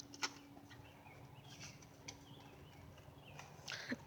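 Faint bird chirps over quiet outdoor background, with a faint click just after the start.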